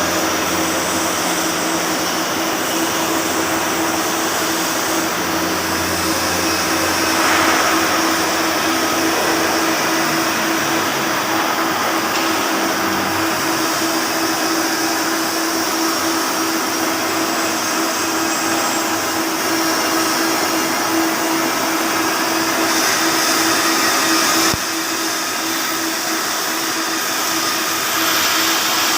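Flux-cored arc welding on carbon steel with 1.2 mm wire: a steady, continuous arc hiss and crackle, with a steady hum underneath. The level dips slightly about three-quarters of the way through, then the sound goes on.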